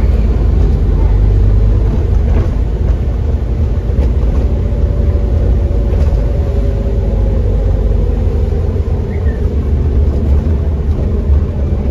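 Scania OmniCity CN230UD double-decker bus under way, heard from inside on the upper deck: a steady, loud low rumble of engine and road. Through the middle a faint whine falls slowly in pitch.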